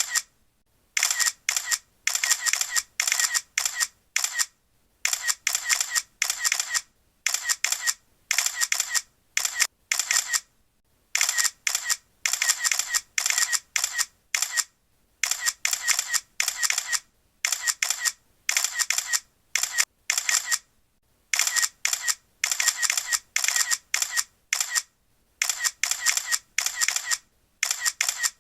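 Apple iPhone camera shutter sound firing in rapid, overlapping bursts like a crowd of paparazzi, crisp clicks in clusters broken by short pauses.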